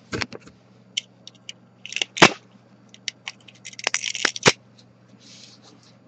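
Irregular sharp clicks and cracks of white ABS 3D-print support material being pried and snapped off a printed buckle. One snap about two seconds in is the loudest, and a quick run of clicks comes around four seconds in.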